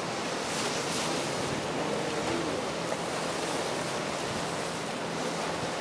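Steady wash of sea waves against a rock breakwater, mixed with wind on the microphone, with a faint low steady hum beneath.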